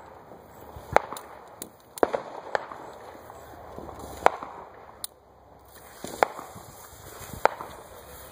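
Firecrackers and fireworks going off: about ten sharp bangs at irregular intervals, the loudest about a second in and about four seconds in.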